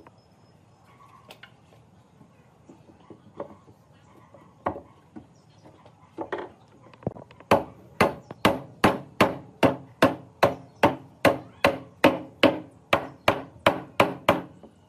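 Repeated blows struck on wood with a hand tool: scattered light knocks at first, then from about halfway a steady run of sharp strikes, a little over two a second.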